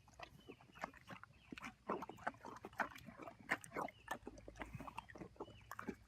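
An animal making many short, faint, irregular grunt-like sounds, several a second.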